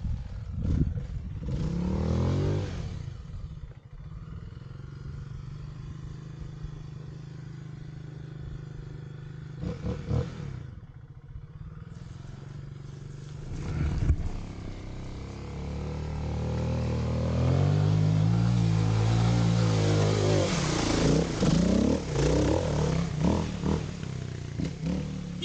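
Kawasaki KX250 dirt bike engine running under a rider on a dirt trail. It pulls at low revs for much of the ride, then revs up and down harder in the last third. There is one sharp knock a little past halfway.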